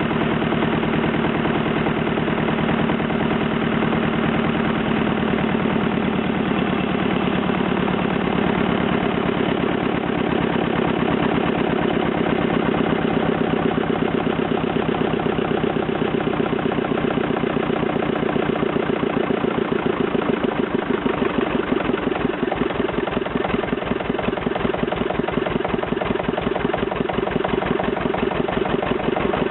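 Freshly restored Petter AVA2 two-cylinder air-cooled diesel engine running steadily with an even, regular beat on its first run after restoration.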